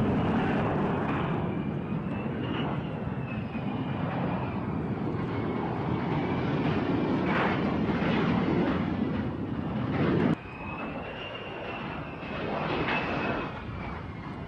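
F-35 Lightning II fighter taking off, its single Pratt & Whitney F135 jet engine giving a loud, dense rush with a faint high whine wavering above it. About ten seconds in the level drops abruptly, and the jet noise goes on quieter.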